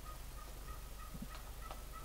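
Turkey calling: a faint, steady series of short calls, about three a second. Two sharp clicks come in the second half.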